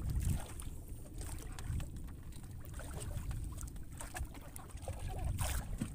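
Low rumble of wind and water lapping around a small outrigger fishing boat, with a few faint knocks and a brief rustle about five and a half seconds in.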